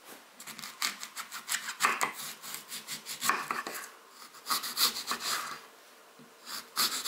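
Knife cutting through a crisp apple on a wooden cutting board: crunchy, rasping strokes as the blade goes through the fruit and meets the board. They come in three bouts: a long run at the start, a shorter one past the middle and another near the end.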